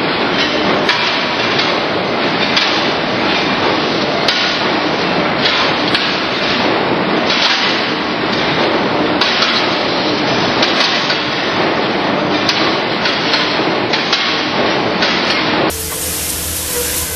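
Factory-floor din of metalworking machinery: a loud, steady, dense clatter of many small metal knocks. About a second and a half before the end it cuts to a quieter, steadier machine hum with a few held tones from a CNC lathe running.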